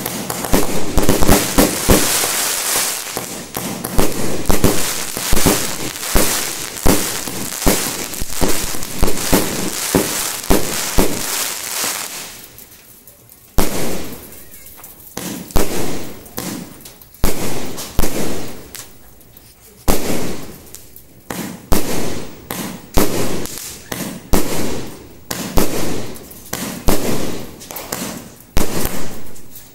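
Aerial fireworks going off: a dense, continuous crackle of bursting shells, easing briefly about twelve seconds in, then separate loud bangs about once a second, each trailing off in crackle.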